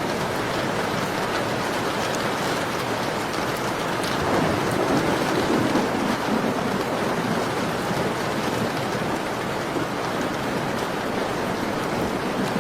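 Steady rain falling, with a low rumbling swell rising and fading from about four seconds in, before the rain settles back to an even level.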